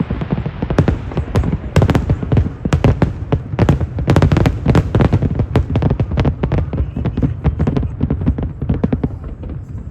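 Fireworks display in full barrage: many sharp bangs and crackles a second over a low rumble, easing off near the end.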